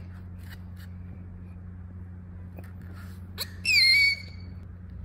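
A baby's brief high-pitched squeal, about three and a half seconds in, gliding down and then held for about half a second, over a low steady hum.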